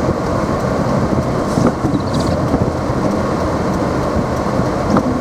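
Steady road and engine noise heard from inside a car driving on snow-covered streets, with a couple of brief faint high swishes.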